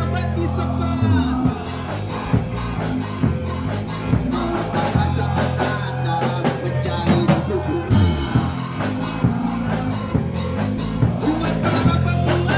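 A rock-style song with drums, guitar and singing.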